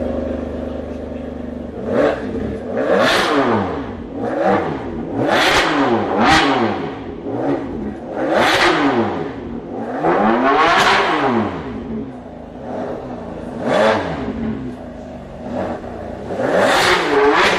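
Ferrari 599's V12 engine idling, then revved up and dropping back about nine times in a row, its exhaust note rising and falling with each rev.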